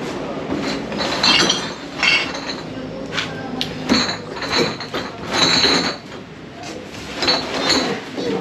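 Irregular clinking, knocking and rattling of clutter being shifted and prodded with a long metal snake hook among boxes and loose items under a shelf.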